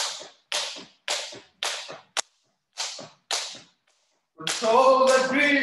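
Skipping rope slapping the floor in a steady rhythm, about two slaps a second, each with a short decaying tail. A person's voice breaks in, louder, about four and a half seconds in.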